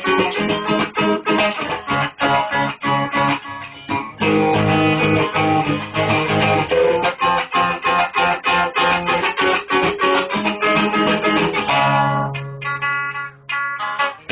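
Guitar music: quickly picked and strummed notes over low bass notes, with a few longer held low notes and sparser playing near the end.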